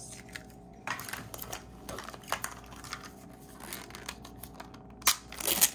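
Hands handling a small hard-plastic Mini Brands capsule wedge and toys: a run of light plastic clicks, taps and rustles as the wedge is opened, with the loudest clicks near the end.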